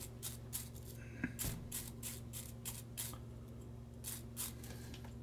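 Small brass wire brush scrubbing a lighter's flint wheel in quick short strokes, about three a second, pausing briefly after about three seconds, over a steady low hum.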